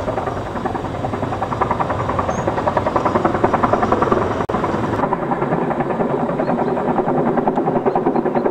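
Mil Mi-10 flying-crane helicopter carrying a slung tower section, its rotor blades beating in a fast, steady rhythm. There is a brief dropout about four and a half seconds in.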